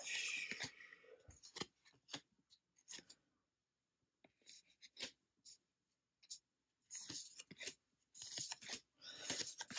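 Faint sliding and brushing of baseball cards being flipped through by hand, one card slid off the front of the stack to the back, in short scrapes with a few light taps. The scraping is sparse in the middle and comes in quicker runs near the end.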